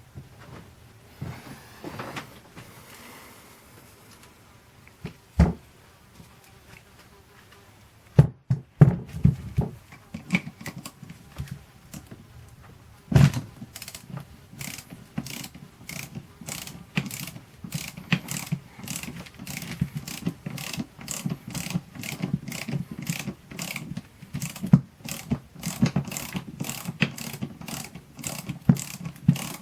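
Metal tools knocking and clinking on a car starter motor, then, from about halfway through, a ratchet wrench clicking in quick, steady strokes as the solenoid's fasteners are undone.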